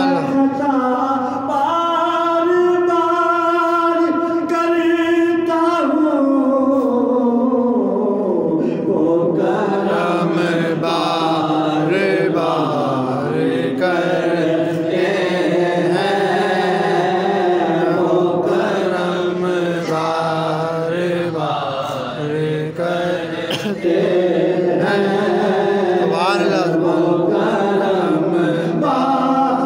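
A man singing a naat (devotional song in praise of the Prophet) into a microphone. He holds one long note for a few seconds near the start, then glides down into a flowing, ornamented melody.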